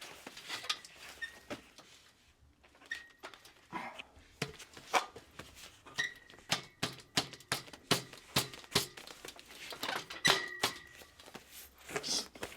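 Small screws being fitted and driven by hand into the metal kayak rack frame: a run of irregular clicks and light knocks, with a few short high squeaks.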